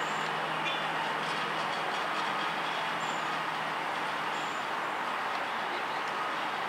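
Ride-on miniature railroad train rolling past, its wheels running steadily on the rails.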